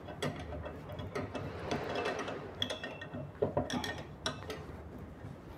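Light metallic clicks and ticks from parts being fitted by hand onto a hydraulic floor jack during reassembly.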